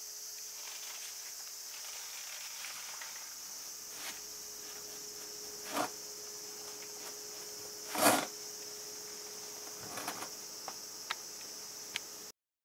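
Steady high-pitched insect chorus, like crickets chirping at night, with a faint steady hum beneath it. A few soft knocks and scuffs cut through, the loudest about eight seconds in, then small clicks near the end.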